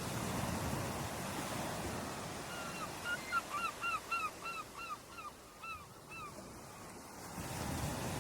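Ocean waves washing on a beach, swelling at the start and again near the end. In the middle a bird calls a quick series of about a dozen short, falling notes, roughly three a second.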